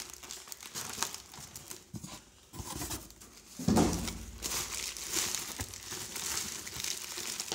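Large-bubble wrap around a glass bottle crinkling and rustling as it is handled, with a dull thump about three and a half seconds in as the wrapped bottle is set down on the desk.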